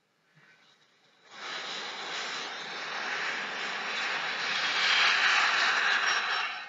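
Aeroplane fly-by sound effect. After about a second of near silence, a rushing aircraft noise comes in and swells, loudest a little before the end, then drops away quickly.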